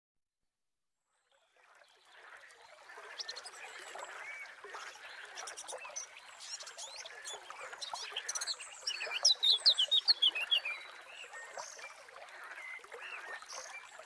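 A stream trickling with birds chirping over it, fading in after about a second and a half of silence. In the middle comes a quick run of loud, high, falling chirps, the loudest part.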